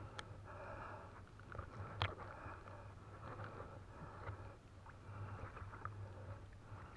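Faint sloshing and lapping of river water as a person wades and pays out a trammel net, over a low steady hum, with one sharp click about two seconds in.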